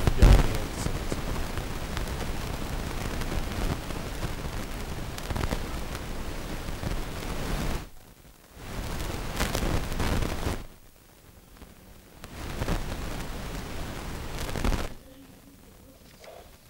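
Hushed ambience of a large indoor arena with the crowd standing for a minute's silence: a steady low hiss of the hall with scattered small knocks and shuffles. A loud thump comes right at the start, and the sound drops almost away several times in the second half.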